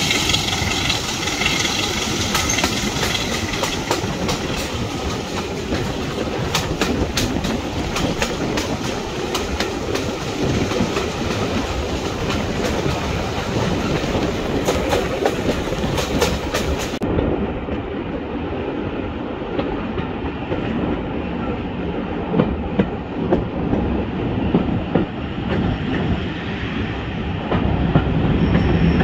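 Train running along the track, its wheels clicking over the rail joints with a steady rumble underneath.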